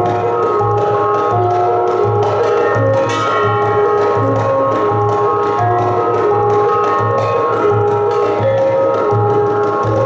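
Gamelan ensemble playing: bronze kettle gongs struck in quick interlocking patterns, their ringing pitches overlapping, over a low beat about twice a second.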